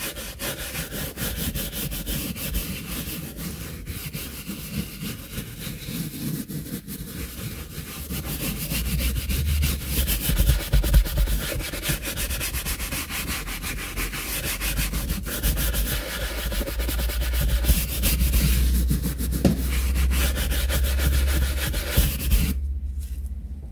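Leather brush scrubbing a wet, cleaner-sprayed leather car seat: a fast, continuous rubbing and scratching that stops abruptly shortly before the end.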